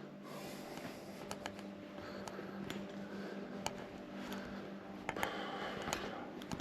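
A steady low hum in a quiet room, with scattered light clicks and taps.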